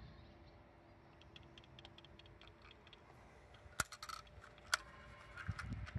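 T238 MkIII airsoft grenade being shaken while armed, its plastic and metal parts rattling with quick light ticks, then a few sharp clicks past the middle and dull thumps near the end.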